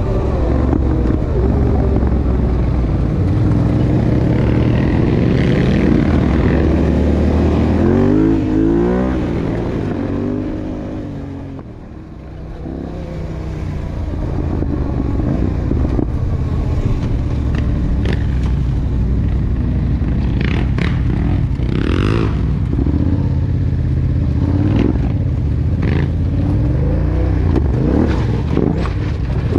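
Yamaha sport quad's engine running under throttle, revs rising and falling, easing off and dropping away about twelve seconds in before building again. Later there are scattered knocks and clatter from riding over rough ground.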